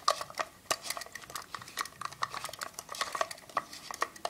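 Irregular light clicks and clatter of hard plastic against metal as a GoPro in its plastic housing, on a stainless steel Ikea-timer base, is handled.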